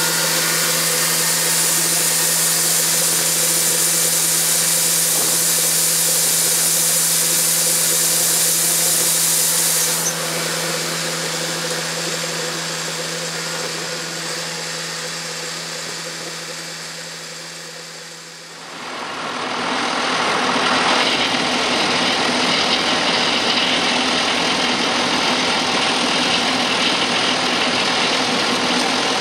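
Heavy farm machinery running steadily with a constant hum, fading out just past halfway, then another machine running with a louder, rougher noise.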